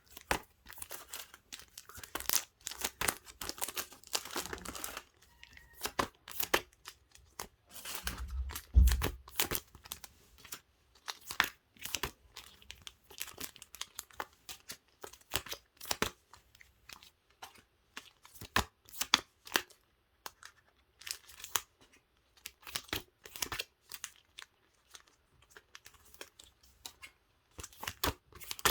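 Plastic-sleeved paper goods being handled: crinkling rustles and irregular small clicks and taps as items are picked up and set down, with one dull thump about a third of the way in.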